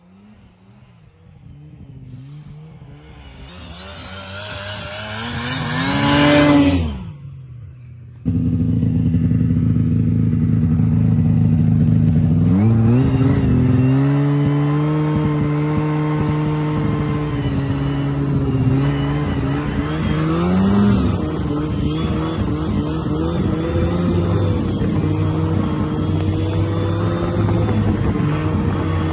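An engine approaches, grows louder and passes close by, its pitch dropping as it goes past. The sound then changes abruptly to a snowmobile engine running steadily under the rider, revving up a few seconds later and again briefly near the end.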